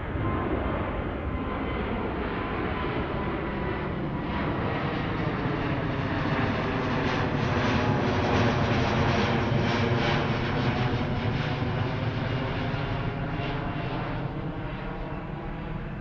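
Twin-engine widebody jet airliner passing overhead. A steady jet roar swells to its loudest about halfway through, then slowly fades as the plane moves away.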